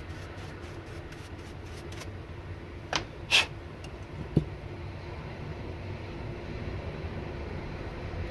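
A few sharp clicks of small airsoft gearbox parts being handled and fitted, the loudest about three and a half seconds in, then a single low knock, over a steady low background hum.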